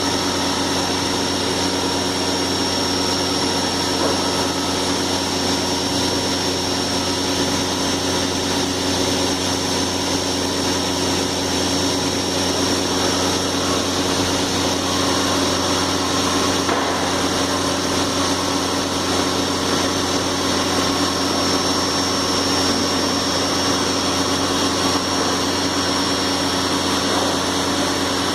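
CNC machine running steadily, a continuous machining hum with a constant high whine over it.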